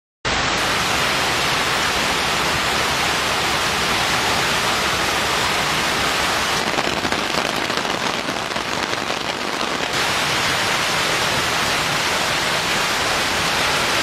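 Heavy rain pouring down onto a road and vehicles, a loud steady hiss of downpour during a tropical storm.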